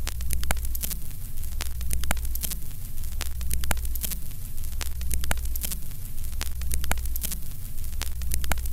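Old-film countdown sound effect: the crackle and hiss of a worn optical soundtrack, peppered with irregular sharp clicks, over a low hum.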